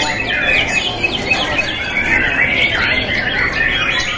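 Several caged white-rumped shamas (murai batu) singing at once: a dense, unbroken chorus of quick sweeping whistles and chirps.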